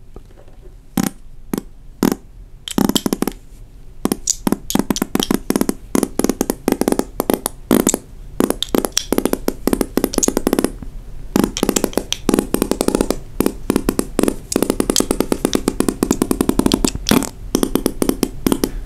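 A person blowing a long, drawn-out fart noise, held as long as one breath allows. It starts with a few single sputters, then turns into a continuous wet, rapid sputter from about three seconds in, with a brief break near the middle.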